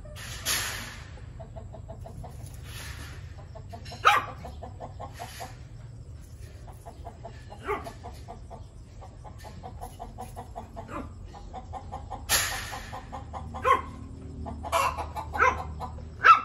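Domestic chickens clucking steadily, with a few short, sharp, loud calls and several brief hissing bursts; the loudest come about four seconds in and near the end.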